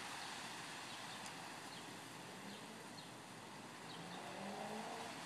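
Oscillating lawn sprinkler spraying water, a steady hiss of spray falling on grass and plants, with a few faint bird chirps. A faint low hum comes in near the end.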